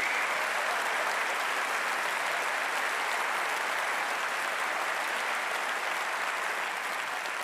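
Large audience applauding, a steady dense clapping that thins slightly near the end.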